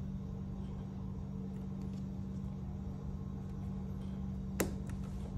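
Steady low machine hum with a single sharp click about four and a half seconds in.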